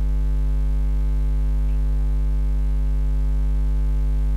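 Steady electrical mains hum at about 50 Hz with a stack of harmonics, carried on the recording with no other sound over it.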